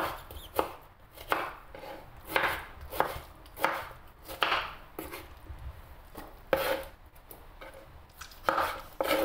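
A kitchen knife dicing peeled tomatoes into cubes on a wooden cutting board: about a dozen short, unevenly spaced chops, roughly one a second or a little faster.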